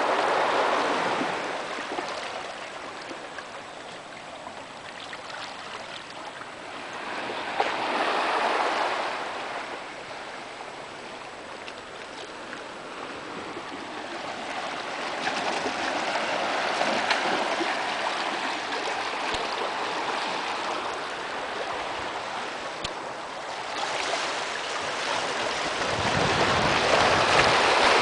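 Small sea waves washing and gurgling over the rocks at the shoreline, swelling and easing back every several seconds. A low rumble joins near the end.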